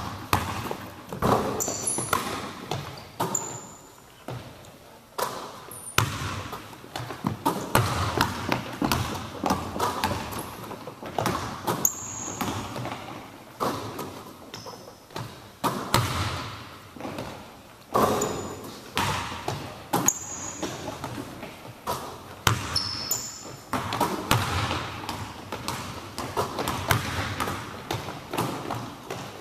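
Basketball bouncing on a hardwood gym floor: irregular thuds, about one every second or two, echoing in the large hall. Short high sneaker squeaks come a few times.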